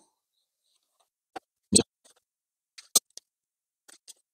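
Handling noise: a few short, scattered clicks and taps as the paper template is moved against the car's rear panel, the loudest about a second and three-quarters in.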